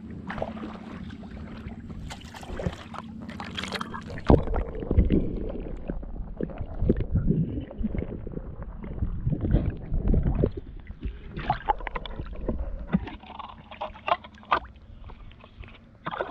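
Water sloshing and splashing, with irregular knocks and rustles from handling, loudest in the middle stretch.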